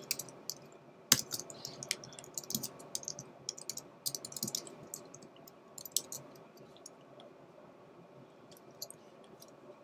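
Typing on a computer keyboard: a run of quick key clicks for about the first six seconds, then a lull with a few more clicks near the end.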